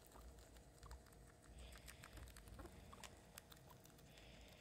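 Faint, irregular crunchy clicks of guinea pigs chewing kale leaves.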